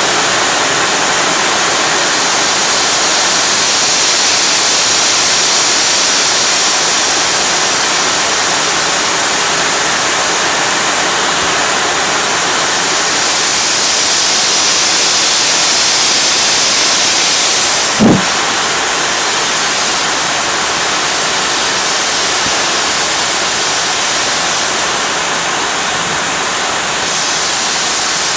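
Steam locomotive A428 (built 1909) hissing steadily and loudly as steam escapes beside the front of the engine. A single short knock sounds about two-thirds of the way through.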